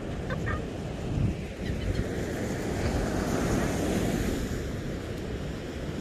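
Wind buffeting the microphone over the wash of ocean surf on the beach, with a couple of brief seagull cries about half a second in.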